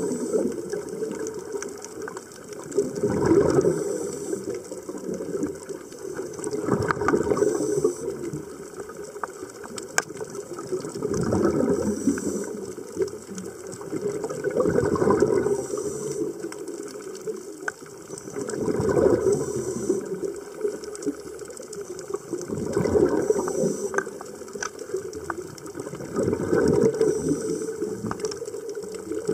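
Scuba regulator breathing underwater: rumbling, crackling exhaled bubbles swell in regular breaths about every four seconds.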